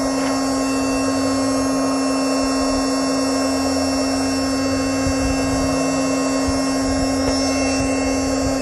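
Electric air pump running steadily, blowing air into an inflatable boat's air chamber through its valve. It makes a constant motor hum over a rush of air while the chamber is still only partly inflated.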